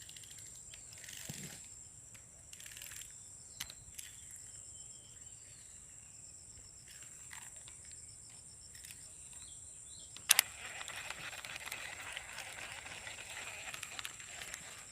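Quiet outdoor ambience under a steady, high, thin insect buzz such as crickets. A single sharp click comes about ten seconds in, followed by a louder rustling hiss.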